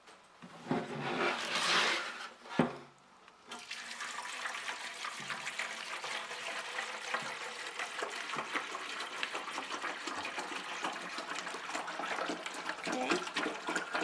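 Water poured from a one-gallon jug into an ultrasonic humidifier's water tank: a few handling knocks at first, then a steady splashing pour from about three and a half seconds in.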